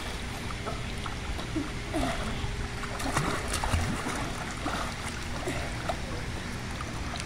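Pool water splashing and lapping as children swim and kick, a steady watery wash with small scattered splashes.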